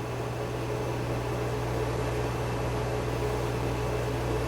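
A steady low hum with a faint hiss over it, unchanging.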